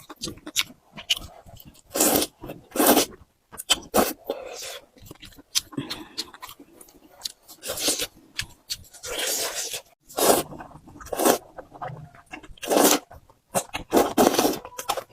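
Close-miked eating of flat noodles: chewing with wet mouth clicks, broken by several louder slurps of about half a second to a second each.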